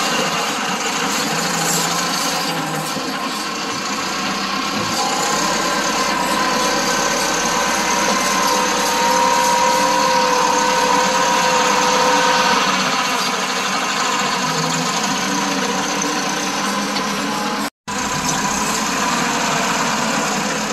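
Farm tractor's diesel engine running steadily under load as it pulls a rear blade through wet soil, with a whine standing out for a few seconds midway. The sound drops out for an instant near the end.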